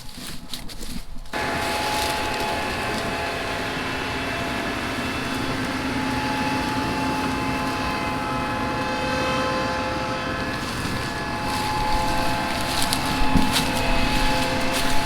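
A farm harvest machine's engine running steadily with a steady whine, starting abruptly about a second in. A few sharp clicks come near the end.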